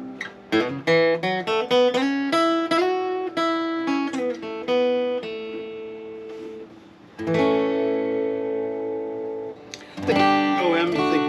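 Handmade steel-string dreadnought acoustic guitar played with a pick: a quick run of single picked notes, then a chord struck about seven seconds in and left ringing, and strumming again near the end.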